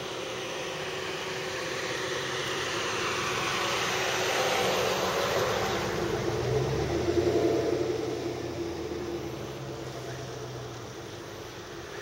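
A motor vehicle passing by: its sound swells to a peak around the middle, dropping in pitch as it goes past, then fades away.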